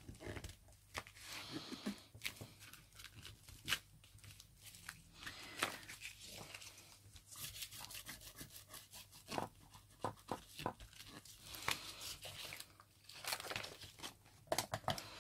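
Hands pressing, smoothing and handling sheets of decoupage paper on an envelope: faint, irregular paper rustling and crackling, with a few sharper crackles.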